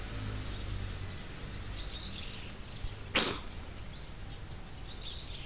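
Quiet outdoor background with faint, scattered bird chirps, and one short, sharp burst of noise about three seconds in.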